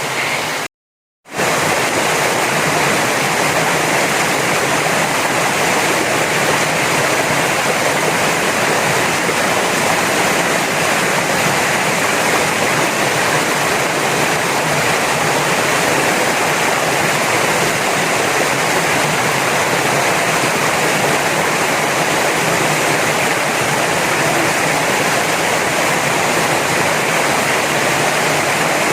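Waterfall heard at close range: a loud, steady noise of falling water, broken by a brief dropout to silence about a second in.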